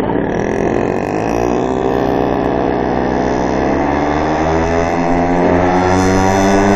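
Small 50cc two-stroke moped engine pulling uphill under load. Its note climbs slowly and steadily in pitch as it gains speed.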